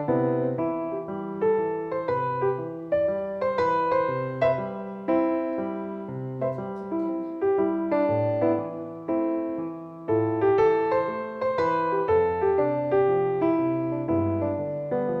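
Background piano music: a gentle melody with steady chords.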